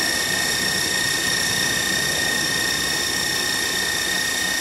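Butane kitchen torch hissing steadily against a glass mixing bowl while a stand mixer runs with a high steady whine, its beater churning buttercream. The bowl is being warmed because the buttercream curdled from the cold and needs heat to come together smooth.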